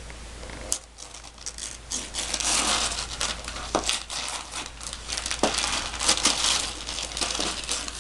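Gift wrapping paper and tissue paper crinkling and tearing as a wrapped present box is unwrapped and opened, starting about a second in.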